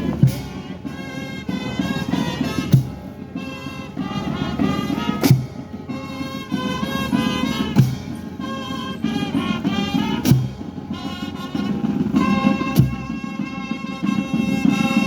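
Brass music played slowly, with a heavy drum struck once about every two and a half seconds.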